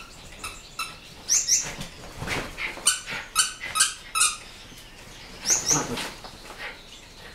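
A dog's squeaky toy squeaking repeatedly as the dogs chew and tug at it: short high squeaks, often in quick pairs as it is squeezed and let go, with some scuffling in between.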